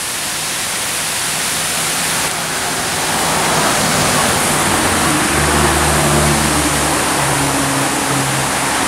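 Steady rushing of a waterfall, with a low hum joining in from about three seconds in until near the end.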